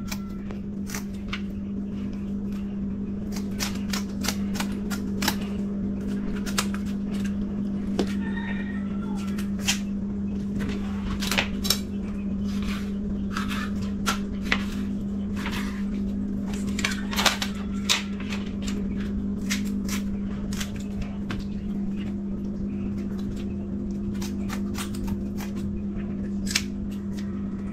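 Kitchen scissors and a knife cutting up parrotfish on a plastic cutting board: irregular sharp snips and clicks over a steady low hum.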